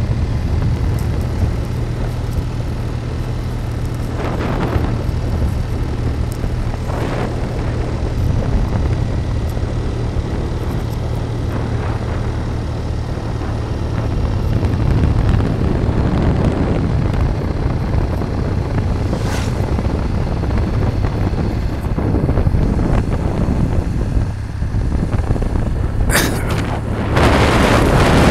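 A vehicle travelling along a road at a steady speed: a low, steady engine rumble under road and wind noise. Near the end, wind buffets the microphone loudly.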